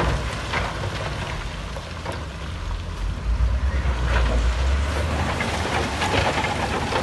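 Heavy diesel construction machinery running with a deep, steady rumble that dips in the middle and builds again, with a few sharp clanks or knocks here and there.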